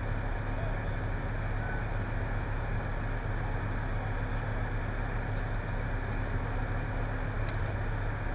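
Engines of parked emergency vehicles idling: a steady low hum under a constant noise.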